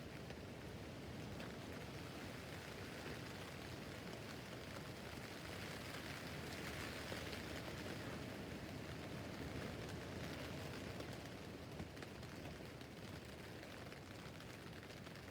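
Rain falling on a tent roof: a steady patter of drops on the fabric, swelling a little midway and easing slightly toward the end.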